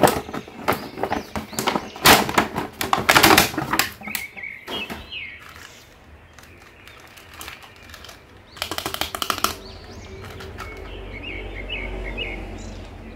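Clear plastic packaging and a paper instruction sheet rustling and crinkling as a plastic action figure is handled. There is a dense clatter in the first few seconds, a quick run of clicking about nine seconds in, and faint short chirps near the end.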